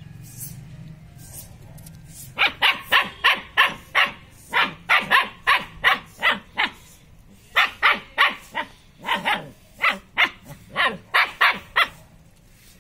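Long-coat German shepherd puppy barking in two runs of quick, high-pitched barks, about three a second, with a short pause between them.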